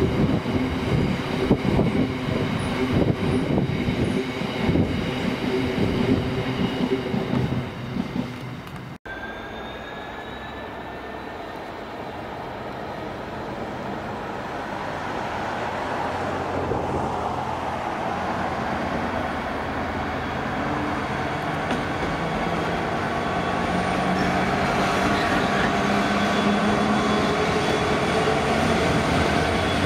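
Empty open box wagons of a stone train run past with a dense rattle and knocking. After a sudden cut, a GB Railfreight Class 66 diesel locomotive approaches slowly with flat wagons. Its engine grows steadily louder over a rumble of wheels, with a thin high squeal from the wheels.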